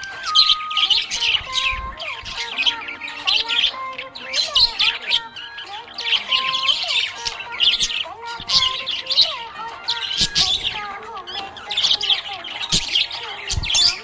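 Budgerigar chirping and warbling in a busy, continuous chatter of rapid chirps and short squawks.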